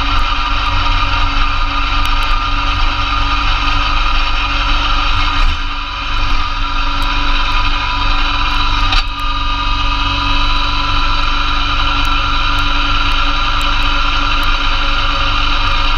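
Massey Ferguson GC2300 compact diesel tractor running steadily under load while driving a PTO-powered Blizzard B48 snowblower, engine and blower together as one loud, even drone with several steady whining tones. The sound dips briefly about six seconds in and shifts suddenly about nine seconds in.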